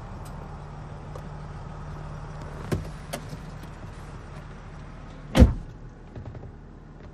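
Land Rover Discovery 4's 3.0 SDV6 turbo-diesel V6 idling, a low steady hum heard from inside the cabin. A couple of light clicks come near the middle and one loud thump about five seconds in.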